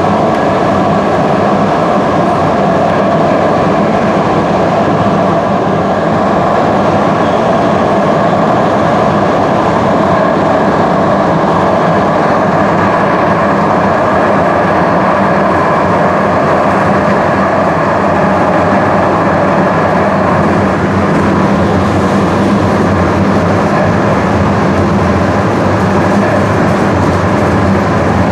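DART light rail train running between stations, heard from inside the car: a steady rumble of steel wheels on the rails with a constant hum.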